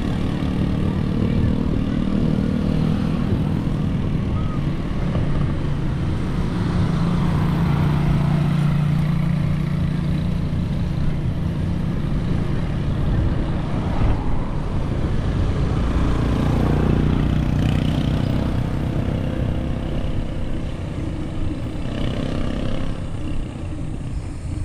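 A motor vehicle's engine running steadily at road speed, with road and wind noise; its hum rises in pitch about a quarter of the way through and eases back later.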